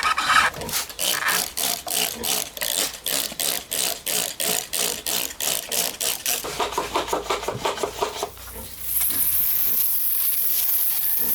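Rapid scrubbing strokes on a mud-covered diecast model car, about four to five a second, stopping about eight seconds in. About a second later a steady spray hiss starts.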